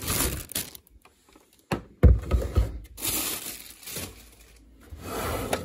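Protective plastic wrapping crinkling and rustling in several bursts as it is handled and pulled off a UPS unit, with one heavy thump about two seconds in.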